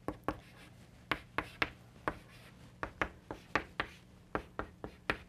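Chalk writing on a blackboard: an irregular run of sharp taps and short scratches as each stroke hits the board.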